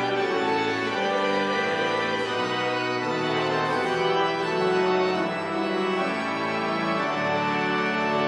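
Organ music: held chords that change every second or so, at a steady level.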